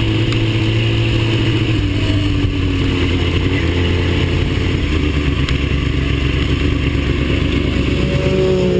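Engine of a track-day vehicle at speed on a race circuit, heard onboard with wind noise. The engine note eases down about two seconds in, holds steady, then climbs again near the end as it accelerates.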